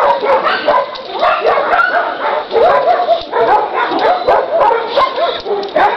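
A dog yelping and whining in a rapid string of short, rising-and-falling calls, about two or three a second.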